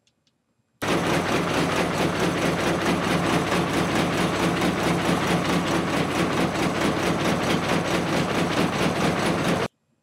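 Frame sawmill (log gang saw) running idle, with no log yet in the saw: a steady loud mechanical din with a fast regular beat from the saw frame's strokes. It starts abruptly about a second in and stops abruptly just before the end.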